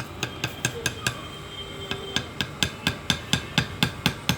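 Quick, even hammer taps, about four a second, striking a part during an exhaust fan repair.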